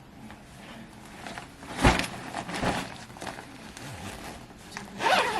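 Clothing rustling and brushing close to the microphone as a hood and ski mask are pulled on and adjusted, loudest about two seconds in and again near the end.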